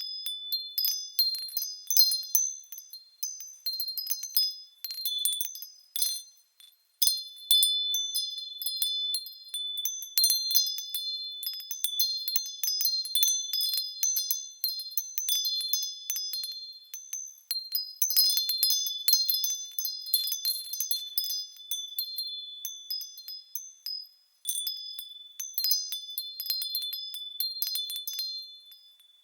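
Wind chimes tinkling in a breeze: high-pitched chimes struck irregularly and ringing over one another, twice falling briefly quiet.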